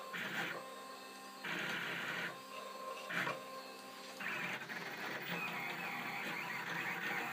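Home-built delta 3D printer printing: its stepper motors whir in stop-start bursts of about a second as the arms move the print head. About four seconds in it settles into a continuous run.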